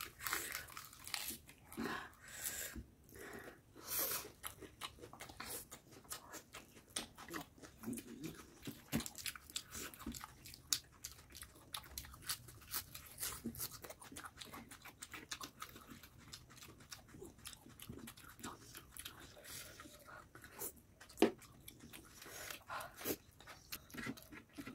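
Faint, close-up crunching and chewing of crisp lettuce leaves and chicken lollipop, made of many short clicks of biting and chewing.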